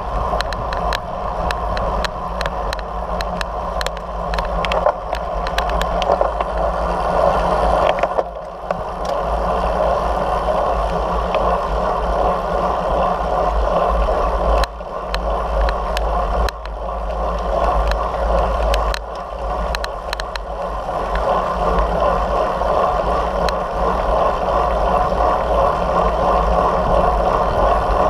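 Wind rushing over the microphone of a bicycle-mounted action camera at riding speed, with a steady low buffeting rumble and tyre noise on asphalt. Many small clicks and rattles sound through the first several seconds.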